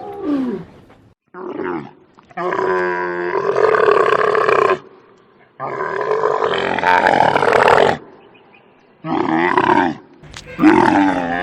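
Camel roaring in a series of calls. Two long calls of about two and a half seconds each come between shorter ones.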